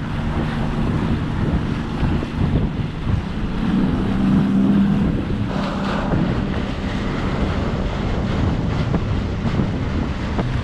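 Boat motor running at speed under way, a steady low hum mixed with water rushing past the hull and wind buffeting the microphone; the hum swells briefly about halfway through.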